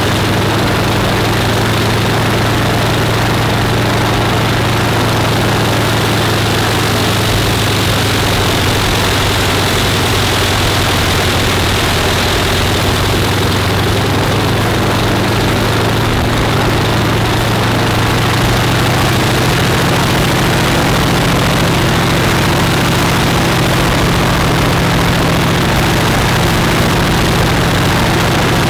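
Pratt & Whitney R-985 nine-cylinder radial aircraft engine idling smoothly on a ground run, the propeller turning. Its speed and loudness pick up slightly about two-thirds of the way through.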